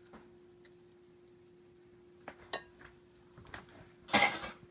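Drained spaghetti being transferred into a baking dish: scattered light clinks of a utensil and pot against the dish, with a louder, longer scrape about four seconds in.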